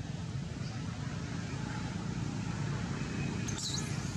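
Steady low outdoor rumble, with a short high chirp about three and a half seconds in.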